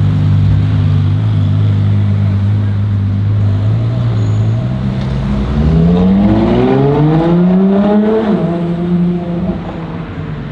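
A sports car engine runs low and steady, then accelerates hard about six seconds in. Its pitch climbs for a couple of seconds, then drops back and fades slightly.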